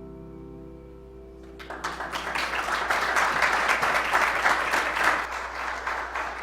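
A held musical chord ends about a second and a half in, and a congregation breaks into applause that carries on steadily after it.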